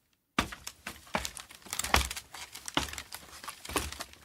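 Steps coming down a ladder: a thud about once a second, with crinkling and rustling between them.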